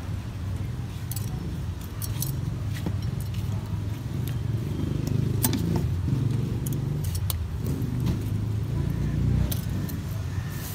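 Scattered metallic clicks and clinks of a metal hand lime squeezer and a steel mixing cup being handled, over a steady low rumble of street traffic.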